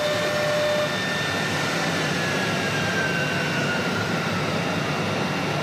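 CNC router spindle running and cutting a pattern into a wooden door panel: steady cutting noise with a high whine that slides a little lower in pitch around the middle.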